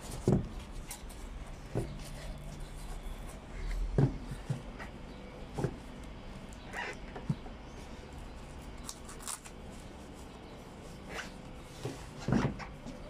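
Occasional light knocks and scuffs of cycling shoes on a wooden deck as the wearer shifts and steps, the loudest a step about twelve seconds in.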